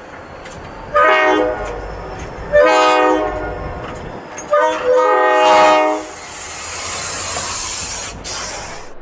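Train air horn sounding a chord of several tones in three blasts, the second and third longer than the first, followed by a rushing hiss that cuts off suddenly near the end.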